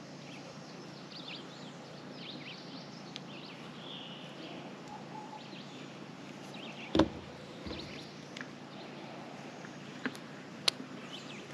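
Outdoor yard background with scattered faint chirps of birds and chickens, and one sharp knock about seven seconds in, with a smaller click near the end.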